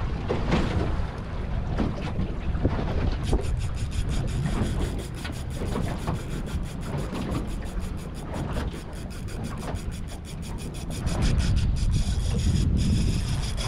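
Wind buffeting the microphone over the rumble of sea and boat. From about three seconds in, a fast, even ticking of about five a second runs on, high and thin.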